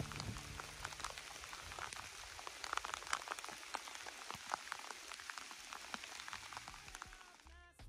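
Rain falling, with many separate drops ticking sharply against a steady hiss; it fades out near the end.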